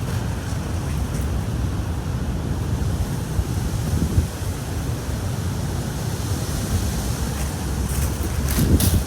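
Wind buffeting the microphone outdoors: a steady low rumble, with a few short knocks near the end.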